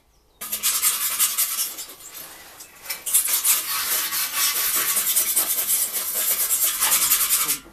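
Metal scraping and clinking as a hand tool is worked against a metal tractor part, a dense rapid scratching with a brief lull about two seconds in.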